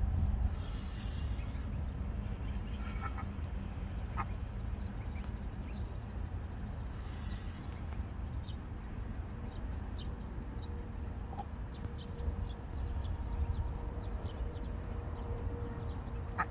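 Domestic white geese hissing twice, each hiss about a second long, about half a second in and again around seven seconds, with bill open: a defensive warning at the person, the parents upset at being kept apart from their goslings. A steady low rumble runs underneath.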